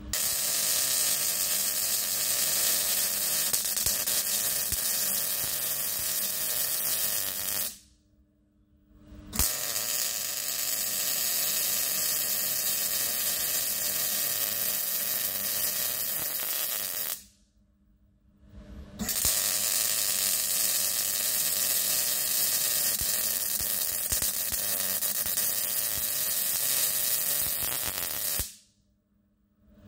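MIG welding arc crackling and hissing steadily as beads are laid around a steel tube, in three long runs of several seconds each, with a short stop about eight seconds in and another near seventeen seconds before the third run starts.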